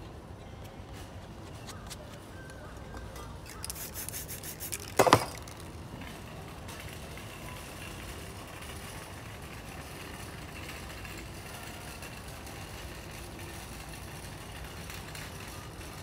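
Metal palette knife scraping across a painted canvas in short strokes, followed by one sharp, loud scrape or knock about five seconds in, over steady background noise.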